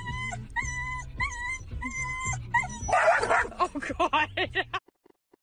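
A dog inside a car gives a regular run of high, even-pitched whining cries. About three seconds in it breaks into a quick string of yips, and the sound cuts off abruptly near the end.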